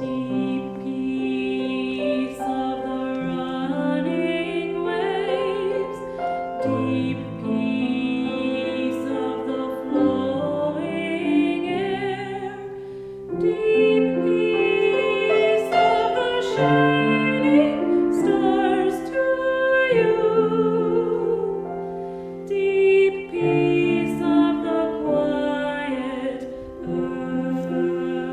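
Choir singing slow music in held chords, with vibrato on the sustained notes.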